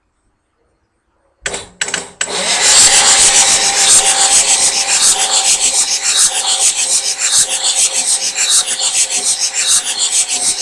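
Starter cranking a 6.9 L IDI diesel engine with its glow plugs out. It clicks and stutters a couple of times at first, then spins steadily with a fast rhythmic chuffing and a thin starter whine. The engine is being cranked to push fuel through cracked injector lines, but no fuel comes through, and the owner suspects a failing fuel pump.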